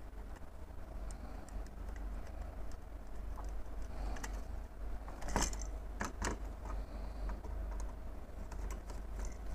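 Small clicks and taps from hands handling a plastic manual thermostat and a screwdriver working its terminal screws, with three sharper clicks a little past the middle, over a low steady hum.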